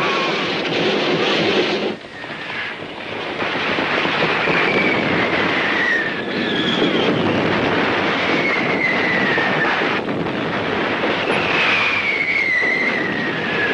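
War-film battle soundtrack: a loud continuous rushing roar with several descending whistles, each falling over a second or two and a few seconds apart. The loudness dips briefly about two seconds in.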